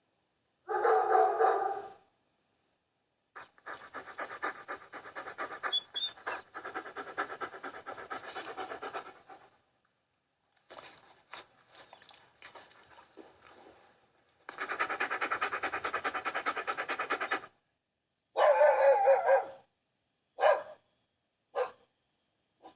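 A dog pants rapidly in several separate recorded stretches, between short pitched dog vocalizations near the start and near the end, with a couple of short single barks in the last few seconds. The clips are cut together with silent gaps between them.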